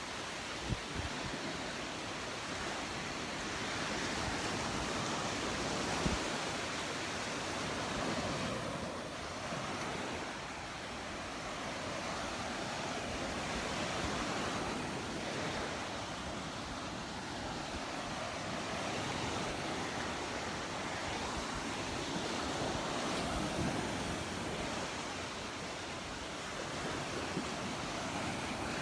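Surf washing onto the beach, a steady wash that swells and eases every few seconds.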